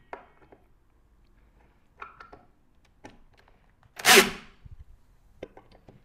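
Cordless drill-driver and screws being handled at a metal table frame: scattered light clicks and knocks, and one loud harsh burst lasting about half a second, about four seconds in.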